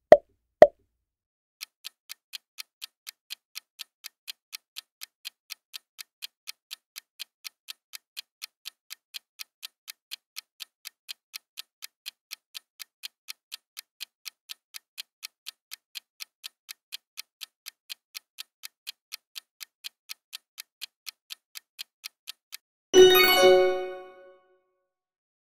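Quiz countdown-timer sound effect: two quick pops right at the start, then a steady clock-like ticking, about two and a half ticks a second, for some twenty seconds. It stops and a short, louder chime rings out near the end as the answer is revealed.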